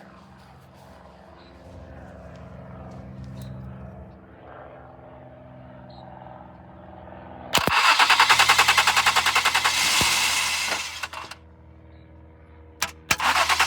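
Stuck-on starter motor of a 2014 Ford Explorer Police Interceptor whirring steadily with the ignition off. About seven and a half seconds in, a loud, fast rattling grind starts, stops a few seconds later and returns near the end. This is the engine being started while the failed starter stays engaged.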